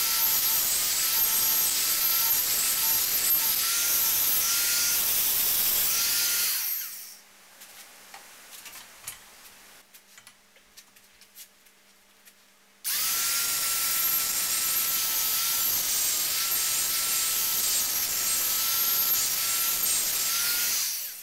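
High-speed rotary grinder with a bullet-shaped burr cutting into the steel around the eye of a hewing axe head held in a vise, a steady whine that wavers as the burr bears on the metal. It stops about six and a half seconds in, leaving a quiet pause with a few small knocks of the axe being handled. It starts again about thirteen seconds in and runs until just before the end.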